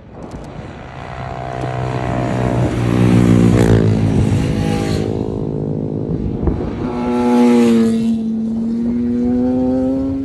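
Motorcycles going by on the road at speed one after another. Each engine note rises and grows louder as it approaches, then drops in pitch as it passes: the first about three and a half seconds in, the second around eight seconds, and a third coming up near the end.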